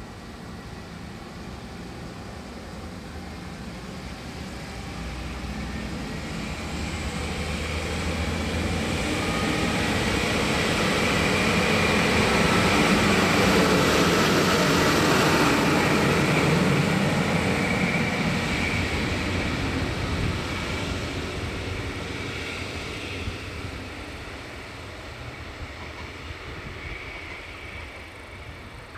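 DB Class 628 diesel multiple unit passing close by: diesel engine running and wheels rolling over the rails. It grows steadily louder to a peak about halfway through, then fades as the railcar moves away.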